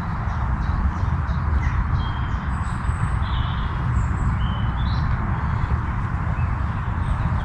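A few short, high bird chirps and calls, most of them between about one and five seconds in, over a steady low rumble of outdoor noise.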